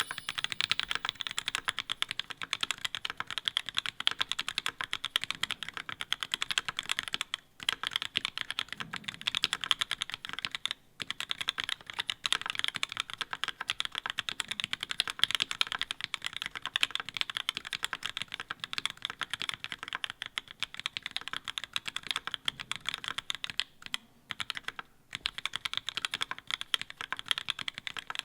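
Fast, continuous typing on a mechanical keyboard fitted with Linworks LINx3 Retro keycaps: a dense run of key clacks with a few brief pauses.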